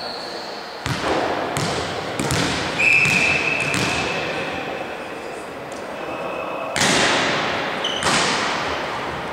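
A volleyball thudding several times in a large gym, each thud echoing, with the two loudest about seven and eight seconds in. A short whistle blast sounds about three seconds in.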